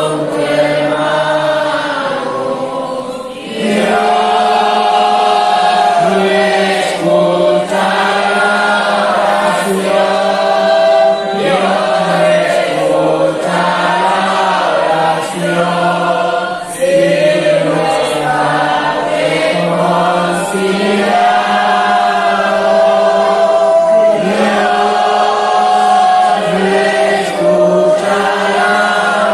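A congregation singing a hymn together in slow phrases of long held notes, over a steady low tone.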